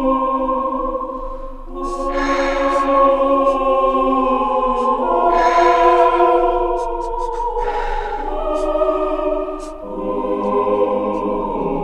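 Choral music: sustained voices holding chords that change every few seconds, with soft swells of breathy noise.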